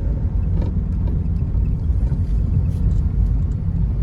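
Car driving along a city street, a steady low road and engine rumble heard from inside the cabin, with a few faint ticks.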